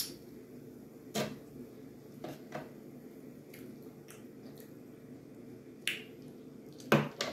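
Scattered sharp clicks of a metal knife and fork striking the metal pan while cutting food, about seven in all, with the loudest pair near the end, over a steady low hum.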